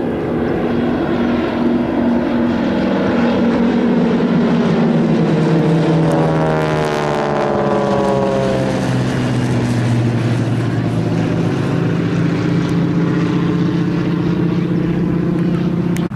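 Radial engines and propellers of a formation of North American AT-6D trainers flying overhead: a loud, steady drone whose pitch drops as the planes pass, about seven seconds in, and then holds lower.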